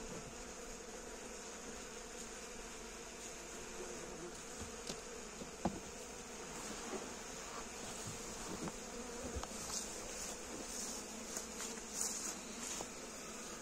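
Honeybees buzzing steadily in and around an open wooden hive, a colony under a burlap cover, with a few light knocks and rustles.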